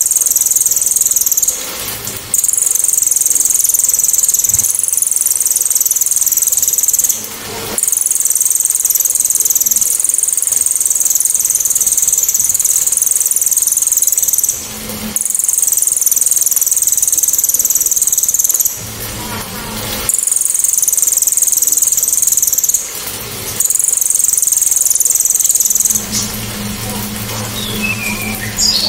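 Crested jay (cililin) giving loud, sharp, very high-pitched rattling trills, each held for several seconds, with short pauses between them. This is the 'tembakan' call that bird keepers use to teach songbirds. Near the end the trills stop, and a low hum with a few short chirps follows.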